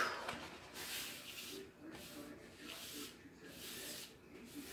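Soft, intermittent rustling and rubbing of plastic as a bag of loose diamond-painting drills and a plastic tray are handled.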